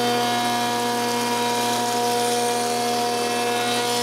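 Electric woodworking power tool surfacing boards, running at a constant, steady hum with a whirring hiss over it.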